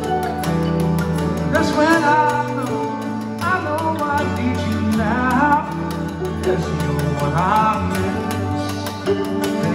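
Live acoustic string-band music: a mountain dulcimer and a mandolin playing over a washboard scraped in a steady rhythm, with several melody notes bending and sliding.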